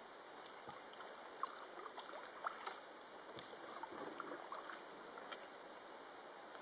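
Faint water sounds from a small boat gliding along a calm canal: scattered soft drips and splashes over a steady low hiss, with no engine running. Two small clicks stand out, about two and a half and five seconds in.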